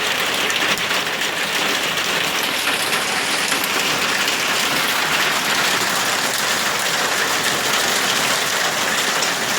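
Heavy hail pounding down: a dense, steady clatter of countless small impacts.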